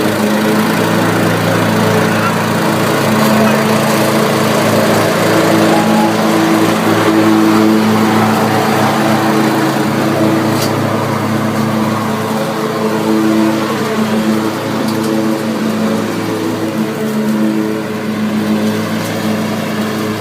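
Troy-Bilt riding lawn mower engine running steadily under way, its note shifting up and down in the second half as the mower moves about.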